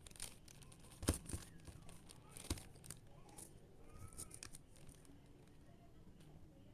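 Plastic puzzle cube being turned by hand: scattered clicks and plastic rattling, with two sharper knocks about a second and about two and a half seconds in.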